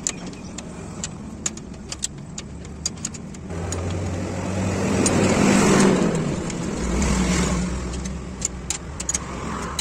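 Sharp metallic clicks and taps from a spanner working on the fittings of a truck's air brake chamber, scattered throughout. From about three and a half seconds in, a motor vehicle's engine hum rises, is loudest around the middle and then eases off.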